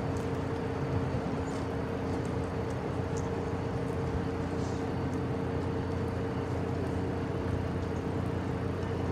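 Steady hum of an Amtrak Northeast Regional train standing at the platform: a low drone with two held tones from the train's running equipment, unchanged throughout.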